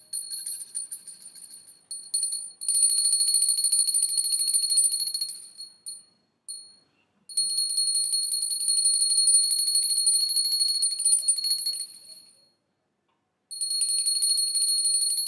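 Small Indian pooja (harati) hand bell rung rapidly, a bright high ringing with fast clapper strikes. It rings softer at first, then in louder spells of about three, five and two seconds with brief silent gaps between.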